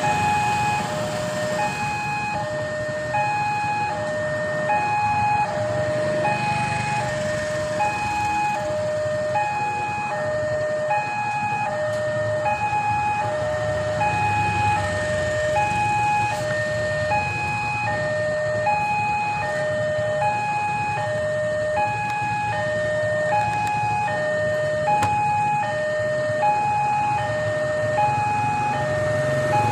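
Railway level-crossing warning alarm sounding a repeating two-tone electronic chime, a higher and a lower note alternating, the pair repeating about every one and a half seconds. It signals that a train is approaching and the barrier is down. Underneath is the low rumble of waiting traffic engines.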